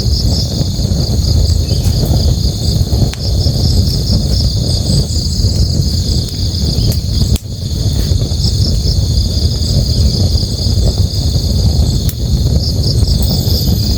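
Night ambience: a river rushing steadily, a continuous high chorus of crickets chirping, and a few sharp crackles from a campfire.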